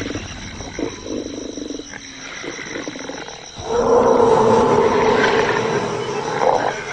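A large wild animal's call: quieter rumbling, then a loud, drawn-out call a little past halfway that lasts about three seconds.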